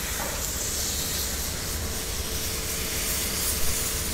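Milk poured into a hot steel sauté pan of cardoons in a butter-and-flour roux, sizzling and hissing steadily. There are two small knocks near the end.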